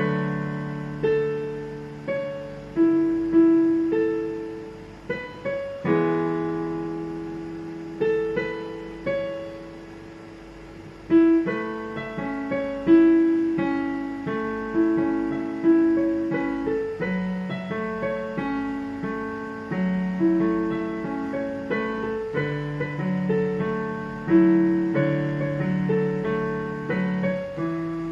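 Solo piano on a home digital piano: a slow pop ballad played with a melody over held chords. The playing dies away into a short lull just before the middle, then comes back louder.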